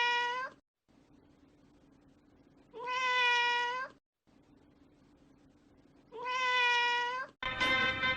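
A cat meowing: the same long, steady-pitched meow three times, about three seconds apart. Music cuts in abruptly near the end.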